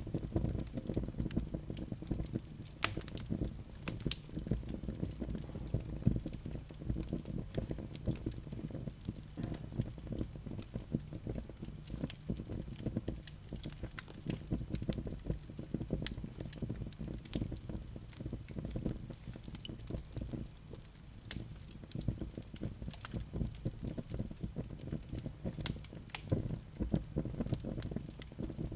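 Wood fire burning in a fireplace: a steady low rumble of flames with many irregular sharp crackles and pops from the burning logs.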